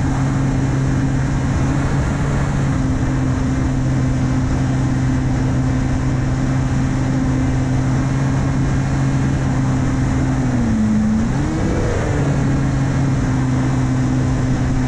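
Electric 2212 1400KV brushless motor spinning an 8x6 APC propeller on an S800 flying wing in flight, recorded on board: a steady propeller hum over wind rush on the microphone. About ten seconds in, the pitch drops and then swoops back up to its steady note.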